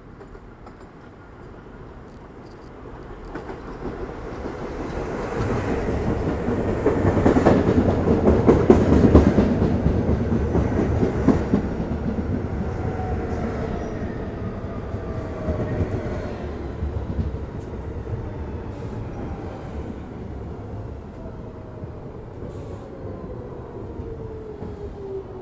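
R46 subway train pulling into an elevated station. Its rumble and wheel clatter over rail joints build as it approaches and are loudest as the front cars pass. Then a whine falls steadily in pitch as the train slows along the platform.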